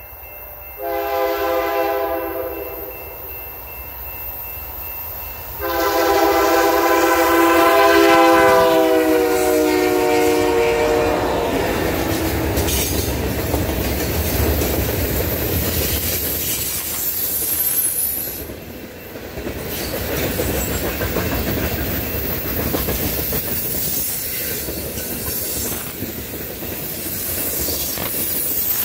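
Canadian National freight train passing. The locomotive's air horn sounds a short blast about a second in, then a long blast from about six seconds whose pitch drops as the locomotive goes by. After that comes the steady rumble and wheel clatter of freight cars rolling past.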